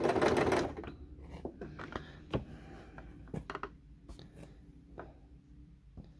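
Domestic sewing machine stitching a coiled cotton rope, stopping well within the first second. After it stops come scattered light clicks and knocks as the rope and i-cord are handled at the presser foot.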